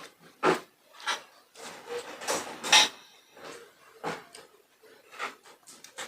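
Crisp crunching and chewing of raw cucumber close to the microphone. About eight irregular crunches, the loudest near the middle.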